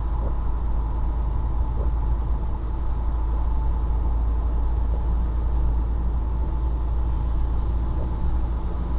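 Truck engine and road noise heard inside the cab while driving: a steady low rumble.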